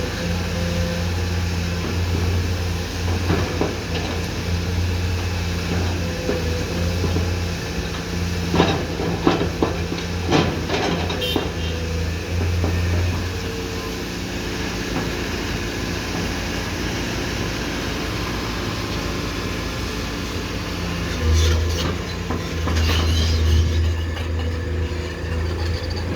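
Komatsu PC210-10M0 excavator's diesel engine running steadily, heavier for stretches as the hydraulics take load, with a run of sharp metallic clanks and knocks about nine to eleven seconds in and a few more near the end.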